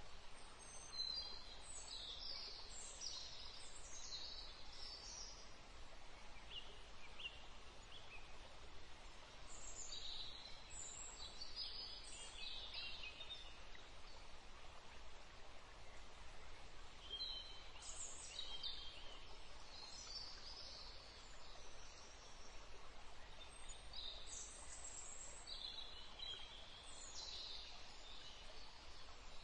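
A bird singing short, high chirpy phrases that come back roughly every seven or eight seconds, over a steady background hiss.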